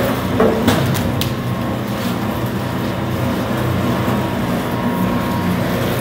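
A BWS-100v2 industrial cable stripping machine running with a steady hum as it feeds and slits the insulation of a heavy 1-inch XLPE cable. There are a few sharp knocks in the first second or so.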